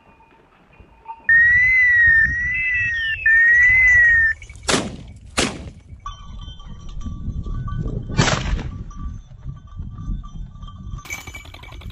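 A loud whistle warbling slowly up and down for about three seconds, then two shotgun shots under a second apart, and a third shot about three seconds later.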